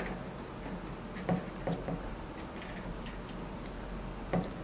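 A handful of separate small metallic clicks and taps as a replacement lock cylinder and its key are handled and fitted at a T-handle vending machine lock, the sharpest about a second in and near the end.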